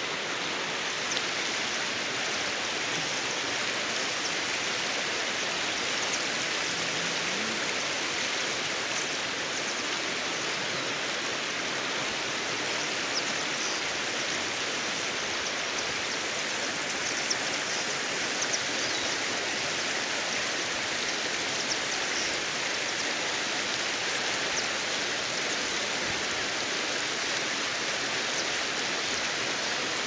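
Steady rush of river rapids pouring over rocks at a waterfall, an even, unbroken noise.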